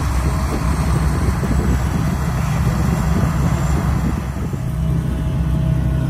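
Tracked rice combine harvester running steadily as it cuts the crop: a continuous engine drone mixed with the noisy rush of its cutting and threshing machinery. The drone dips briefly about two-thirds of the way in, then steadies.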